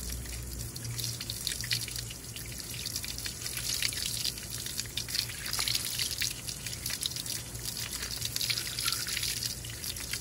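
Water from a garden hose, forced backwards through the cooling passages, streaming and spattering out of the water intake holes on an OMC Cobra stern drive's metal casing, a steady spatter. The water is being run through to flush out sand and small rocks that caused the engine to overheat.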